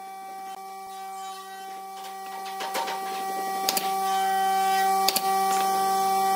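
Pneumatic nail gun firing a couple of sharp shots into a pine wheel-arch trim, over a steady machine hum that grows gradually louder.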